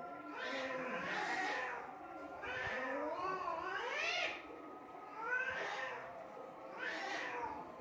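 Domestic cats yowling at each other in a fight standoff: four long, wavering wails that rise and fall in pitch, with short gaps between them.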